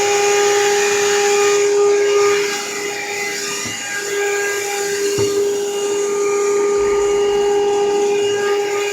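Vacuum cleaner running steadily with a high motor whine while it cleans the stairs, dipping briefly in loudness about two and a half seconds in before picking back up.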